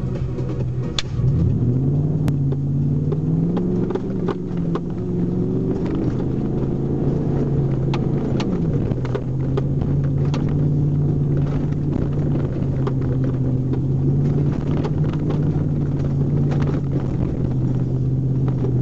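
Ford F-150's 4.6-litre V8 with an Airaid intake, heard from inside the cab while driving a dirt track: the engine revs up about a second in and eases back, falls again around eight seconds in, then pulls steadily. Scattered clicks and knocks sound over the engine.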